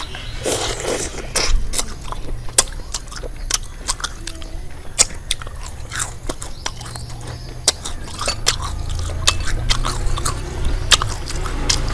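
Close-up biting and chewing of deep-fried, flour-battered frog, with many short, sharp, irregular crunches from the fried coating.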